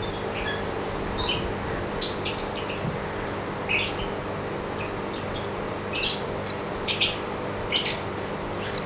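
Short, high bird chirps at irregular intervals, over a steady low hum.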